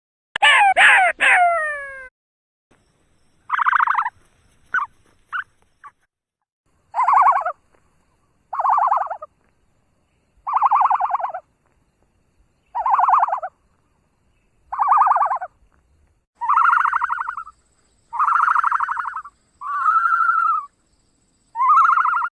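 A series of animal calls: three quick calls that fall in pitch, then about ten rasping, pulsed calls, one every second and a half to two seconds.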